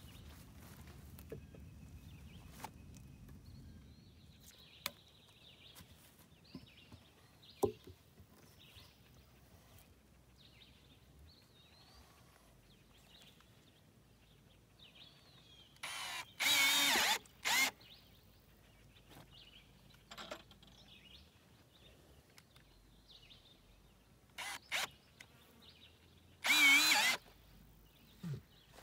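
Cordless drill running in two short bursts, about 16 and 26 seconds in, as it works into the wooden braces of a log frame.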